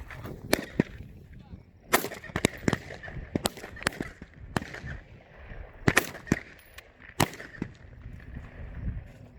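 Rifle fire on a qualification range, likely M4 carbines: about a dozen sharp single shots at irregular intervals, some in quick pairs, of differing loudness, as from nearer and farther firing lanes.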